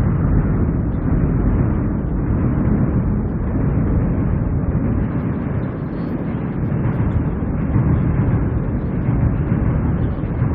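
Strong winter wind rumbling steadily over the microphone, rising and falling in gusts.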